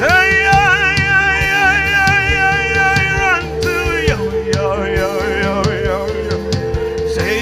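Live worship music: a man's voice holds one long wavering note for about three seconds, then slides down and sings a short wordless run, over a steady band backing with a regular drum beat.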